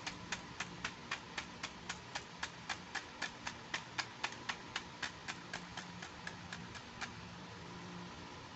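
A run of evenly spaced sharp clicks, about four a second, that stops about seven seconds in.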